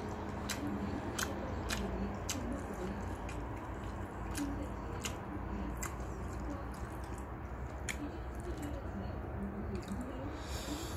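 Someone eating noodles: chewing and mouth sounds with scattered sharp clicks, over a low steady hum.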